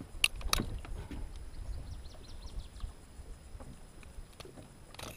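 Water sloshing and splashing around a musky held in a landing net against the side of a boat while it is unhooked with pliers. Two sharp clicks come just after the start, with a low rumble in the first few seconds and small splashes and ticks after.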